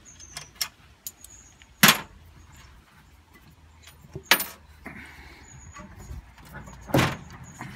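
Three sharp knocks about two and a half seconds apart, with a few lighter clicks between, from hands working on the bolts and washers that hold a washing machine's ballast block inside its sheet-metal cabinet.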